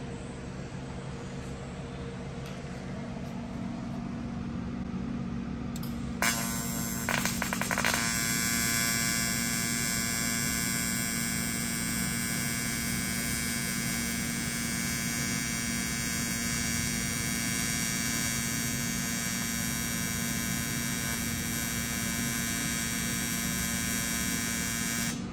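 AC TIG welding arc on thin 1/16-inch aluminum from a Titanium TIG 200. After a low hum, the arc strikes about six seconds in with a few crackles, then holds a steady electric buzz as the foot pedal controls the heat.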